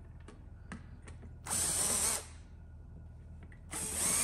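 Cordless electric screwdriver run in two short bursts, about two seconds apart, backing screws out of a pinball drop-target bank, with a few light clicks of parts being handled between them.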